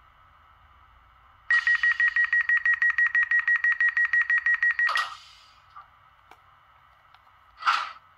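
Door-closing warning signal from the ESU LokSound 5 sound decoder in an H0 model of the ÖBB 4020 S-Bahn. A loud, rapidly pulsing beep of about eight pulses a second lasts about three and a half seconds and ends in a short hiss. A second short hiss comes about two and a half seconds later.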